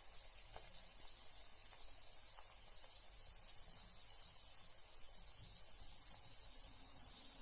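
Carbonated bath bomb fizzing in bathwater: a steady, even high hiss of bubbles with a few faint pops.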